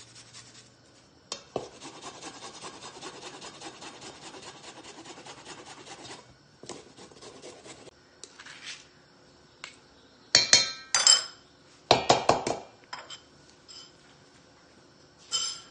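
Fresh ginger rubbed quickly back and forth on a handheld rasp grater for about five seconds, then a few sharp metallic clanks of metal on a stainless steel mixing bowl, the loudest about ten to twelve seconds in and one more near the end.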